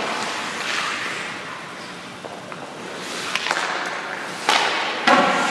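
Hockey goalie's skates scraping across rink ice in the crease, then three sharp knocks echoing in the arena, about three and a half, four and a half and five seconds in.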